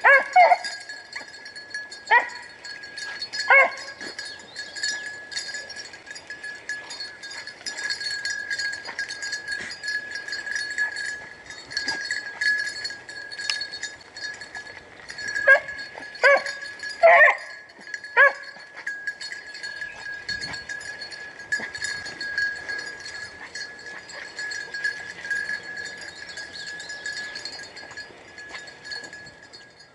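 Rabbit-hunting hounds baying in the distance while running a rabbit's trail: a few barks near the start and a quick cluster of four about halfway through. A steady high-pitched tone runs underneath throughout.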